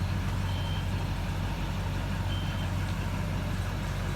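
6.6 L Duramax turbo diesel idling steadily with a low rumble. A high backup-style alarm gives short beeps about two seconds apart.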